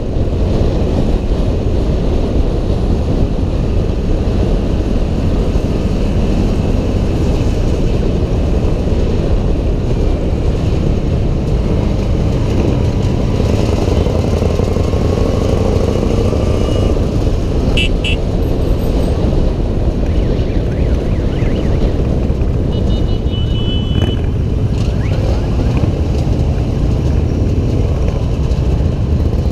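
Steady wind rumble on a helmet-mounted action camera's microphone at riding speed, mixed with the running engines of a column of motorcycles and the rider's scooter. A few brief high tones sound about halfway through.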